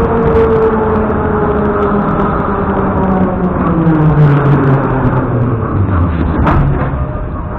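Metro train running through the station, a loud rumble with its motor whine gliding downward in pitch, easing off near the end.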